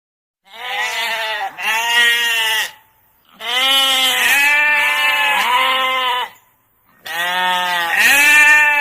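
Bleating: three long, loud calls with short gaps between them, each call broken into two or three wavering pulses.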